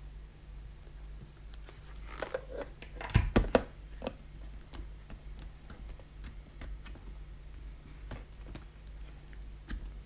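A motorcycle helmet being handled and set down on a plastic tub: a short cluster of knocks and rubbing about two to three seconds in, then a few light clicks, over a low steady hum.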